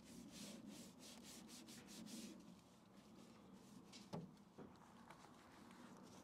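Faint brush strokes scrubbing snow foam over engine-bay surfaces, a quick run of short strokes for about two seconds, then lighter rubbing, with a single knock about four seconds in.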